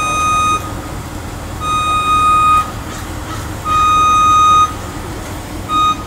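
A truck's backup alarm beeping, one steady high tone about a second long that repeats every two seconds, over the low rumble of the running engine.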